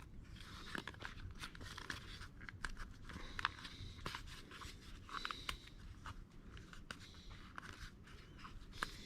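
Faint crinkling, scraping and small clicks of 3M 2080 vinyl wrap film being pressed and worked by hand onto a door handle.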